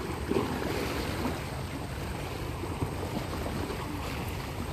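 Steady wind noise buffeting the microphone, with waves lapping against the water's edge.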